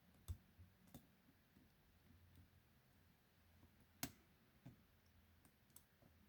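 Faint, sparse clicks of lock picking tools working the pin-tumbler cylinder of a 40 mm Mi-Lock padlock, the two loudest about a third of a second in and about four seconds in.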